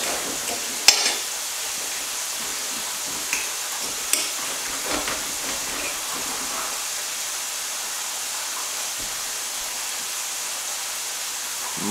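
Steady hiss of goose breast strips frying in hot oil, with a few sharp clinks of knives and forks against plates, the loudest about a second in.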